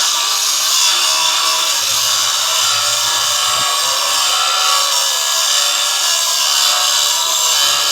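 A power tool running steadily without a break, a loud, even hiss.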